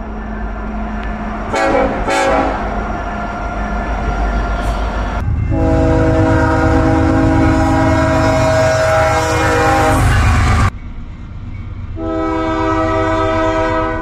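Diesel locomotive air horns from freight trains, with the rumble of the train running underneath. A long horn chord of several notes sounds from about five seconds in and cuts off abruptly near eleven seconds, and another horn chord starts near twelve seconds.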